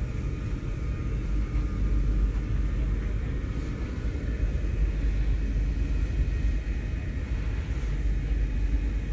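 Cabin sound of a Stadler KISS double-deck electric multiple unit running: a steady low rumble from the wheels and running gear, with a faint steady whine above it.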